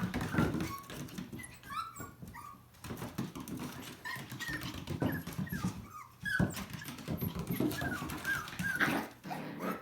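Two puppies play-fighting, with many short high-pitched whines and yips over scuffling and clicks.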